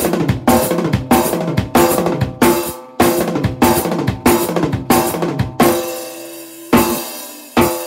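Acoustic drum kit played hard: accented drum hits with cymbal crashes roughly every half second. They break off about two-thirds of the way through, and two last accented hits ring out and fade.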